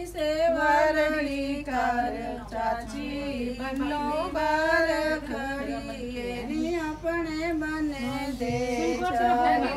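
Women singing unaccompanied, a folk-style wedding song in long, wavering held notes.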